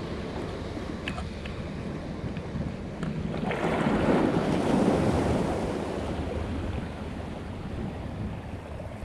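Small sea waves washing at the shoreline, with wind on the microphone; about three and a half seconds in, one wave surges in louder and fades away over the next couple of seconds.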